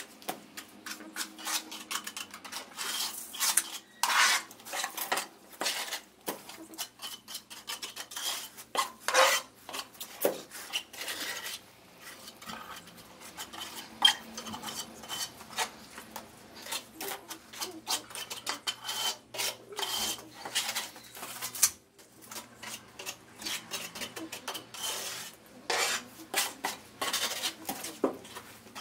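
A tiler's trowel scraping and stirring tile mortar in a plastic bucket: irregular strokes of metal against the bucket's sides, with scrapes and light knocks.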